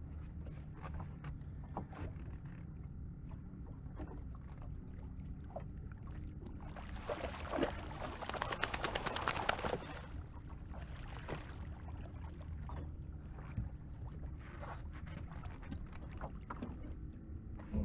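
A hooked small shark thrashing and splashing at the water's surface beside the boat, a rough burst of splashing about seven seconds in that lasts three to four seconds, over a steady low rumble.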